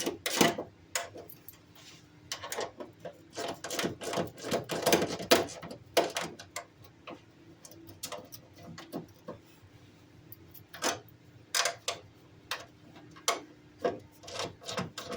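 Irregular clicks and knocks of hand tools and sheet metal being handled and set in place, some sharp, with quiet gaps between them.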